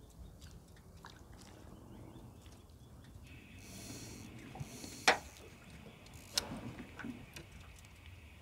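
Faint water lapping against a small boat's hull. A faint steady high tone comes in about three seconds in, and two sharp knocks come about five and six and a half seconds in.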